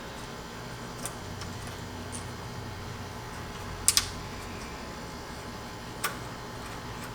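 A few short, sharp clicks and taps of small parts being handled by hand: one about a second in, a louder double click about four seconds in, and one more about six seconds in, over a steady low hum.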